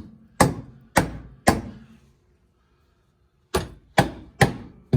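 Hammer blows knocking a steel BBK frame connector up into place on a Fox-body Mustang's underside: three sharp strikes about half a second apart, a pause, then four more, each ringing briefly.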